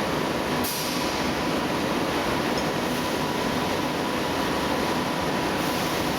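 Steady running noise of polyester staple fiber production line machinery, with a faint steady tone and a short hiss just under a second in.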